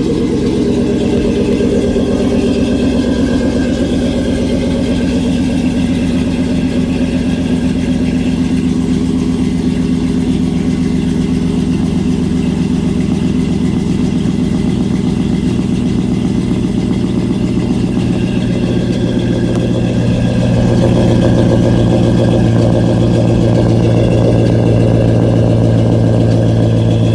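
Old Chevy's engine idling steadily just after a cold start, growing a little louder about twenty seconds in.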